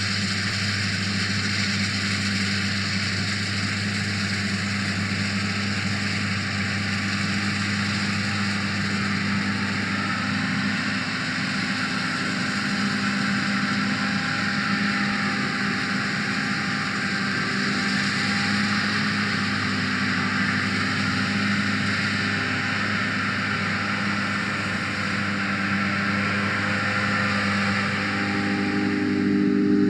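John Deere S680i combine harvester running steadily, a constant drone with a low engine hum that holds one pitch throughout.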